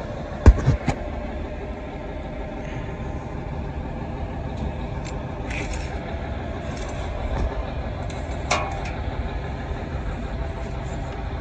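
Steady low engine rumble, like a motor idling, with sharp knocks: two close together about half a second in and a smaller one near the end.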